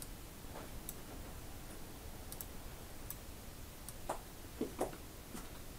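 Faint computer mouse clicks, a scattered handful of short ticks, over a steady low hiss of room tone.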